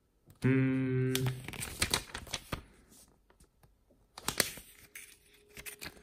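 Pages of a paper booklet being turned and handled, with crisp rustling, crinkling and sharp page flicks. About half a second in there is a short hum from a man's voice, which is the loudest sound.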